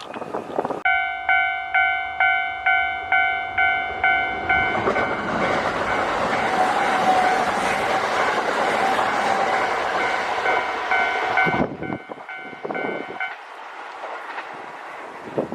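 Level crossing warning bell ringing in a steady rhythm, about two to three strokes a second, as a Kintetsu Osaka Line electric train passes with a loud rushing wheel and rail noise for about seven seconds. The bell rings on for a moment after the train has gone, then stops.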